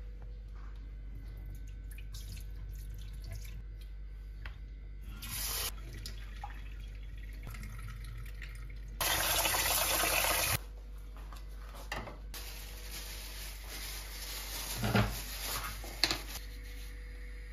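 Rinse water poured off red lentils from an enamel bowl into a stainless steel sink: a steady splash that starts and stops abruptly and lasts about a second and a half, around the middle. Before it and after it come faint handling sounds, with light plastic-bag rustling and a few knocks near the end.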